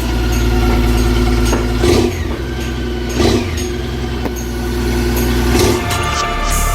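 A vehicle engine idling steadily, with a few brief louder moments.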